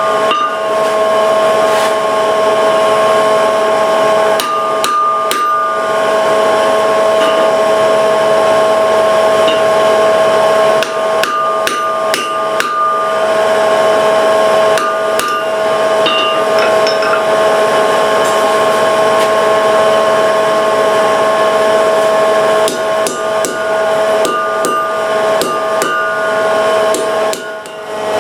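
Hammer striking hot iron on an anvil in short flurries every few seconds, over a steady hum that runs throughout.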